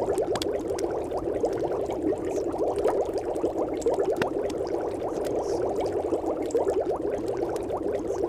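Steady, dense bubbling sound like water at a boil, even in level and without pauses, made of many tiny rising and falling blips packed into a middle band.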